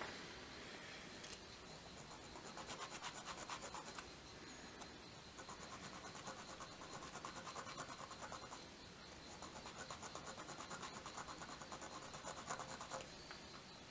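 Small hand file rasping in quick back-and-forth strokes on the edge of a small copper sword fitting, about five strokes a second. It comes in three bouts with short pauses between.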